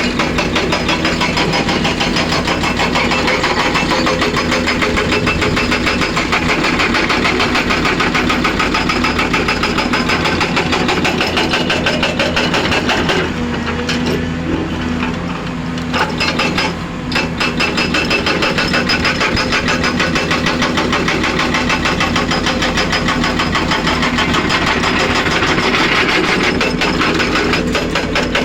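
Excavator engine running hard, with a rapid, even hammering over it that breaks off briefly twice about halfway through.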